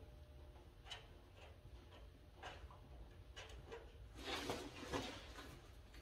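Quiet room tone with a low steady hum and a few faint, irregular clicks, then a brief rustle about four seconds in.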